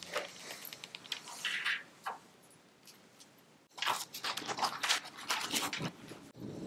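Rustling and light clicks from a cloth pouch, a lanyard and a USB cable being handled on a table. A quieter spell in the first two seconds, a pause, then a louder spell of handling from about four seconds in.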